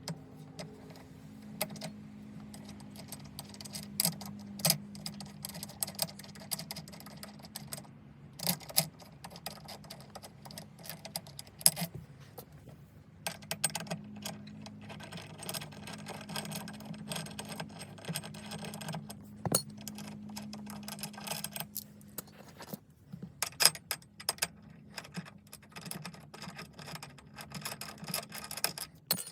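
Irregular metallic clicks and clinks from hand tools and hardware being handled during installation work on a car, over a steady low hum.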